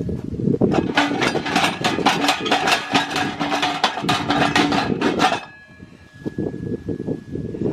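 Rapid run of knocks and clanks, several strikes a second, stopping suddenly about five seconds in.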